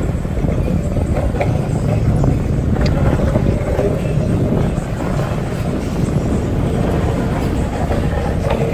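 Skate wheels rolling fast over a concrete floor: a steady low rumble with a few faint clicks from small bumps and cracks.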